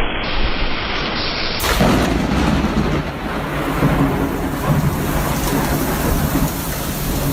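Heavy rain in a thunderstorm: a dense, steady rush of rain with uneven low rumbling underneath.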